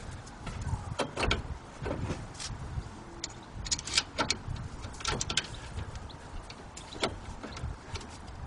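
Irregular metallic clicks and knocks as a Ford Fiesta ST front brake caliper is handled on its carrier and its slider-pin bolts are started by hand, with a low rumble underneath.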